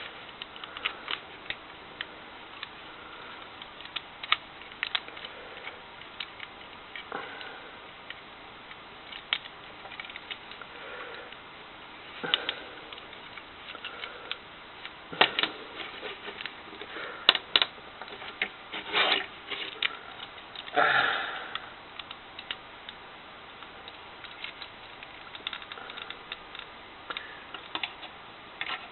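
Small plastic clicks, taps and scrapes of a vintage G1 Transformers toy being handled as its rear section is unfolded into the repair bay, with a few louder rustling scrapes midway.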